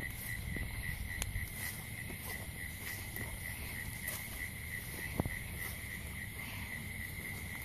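Crickets chirping in the woods at night, an unbroken, evenly pulsing high trill, with low rustling and a few soft clicks of movement underneath.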